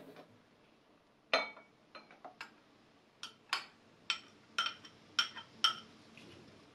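A metal spoon clinking against glass bowls, about a dozen light, ringing taps in irregular succession as dissolved gelatin is scraped out of a small glass bowl into raspberry juice.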